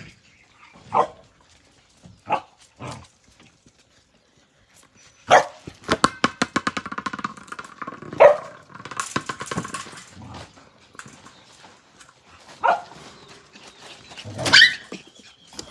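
Australian Cattle Dog puppies yapping and barking in short sharp bursts while they play, with a run of rapid clicking in the middle.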